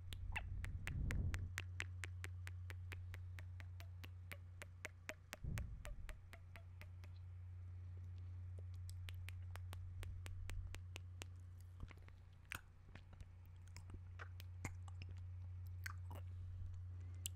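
Close-miked mouth sounds: quick runs of wet lip and tongue clicks and smacks, several a second, thinning out to scattered clicks later on. Low puffs of air hit the microphone about a second in and again around five and a half seconds, over a steady low hum.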